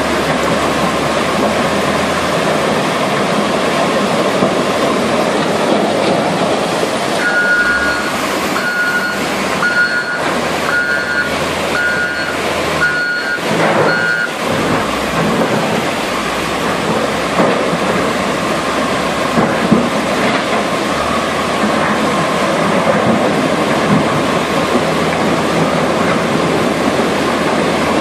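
Loud, steady rush of a muddy floodwater torrent. About a third of the way in, a Caterpillar wheel loader's reversing alarm beeps about eight times, roughly one beep a second, then stops.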